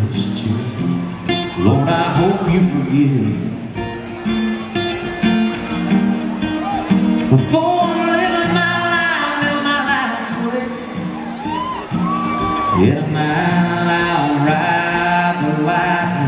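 Live solo acoustic guitar with a man singing into the microphone, a slow country song.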